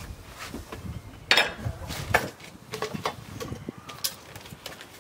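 Irregular knocks, clatter and rustling of kitchen utensils and containers being handled and set down, the loudest knock about a second in.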